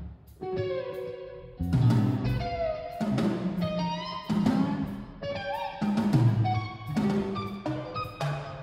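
Live rock band: lead electric guitar playing a melody with bent, sliding notes over drum kit and bass, in stop-start hits. Heard through a smartphone microphone, muffled.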